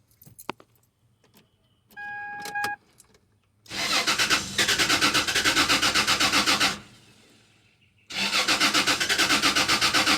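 A short steady electronic warning tone, then a 2004 Toyota Tacoma's starter cranking the engine in two rhythmic attempts of about three and two seconds. The engine never catches: the no-start that the owner gets with a particular relay plugged in.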